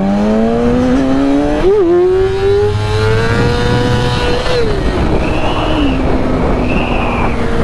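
2008 Yamaha R6's inline-four engine pulling hard, its pitch climbing with a brief dip about two seconds in, then dropping at about four and a half seconds and settling into a steady cruise. Heavy wind rush over the helmet-mounted microphone underneath.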